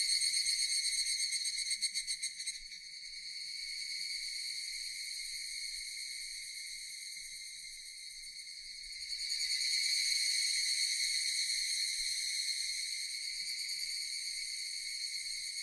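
Japanese cicadas droning, with a rapid pulsing for the first couple of seconds that settles into a steady, high-pitched buzz. The chorus dips in the middle and swells again about nine seconds in.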